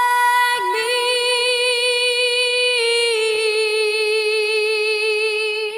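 A woman singing one long held note with a slight waver, briefly breaking about half a second in and stepping down a little in pitch near the three-second mark.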